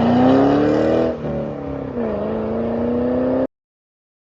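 Car engine accelerating, its pitch climbing, dipping briefly about a second in and again at about two seconds, then holding steady before cutting off abruptly.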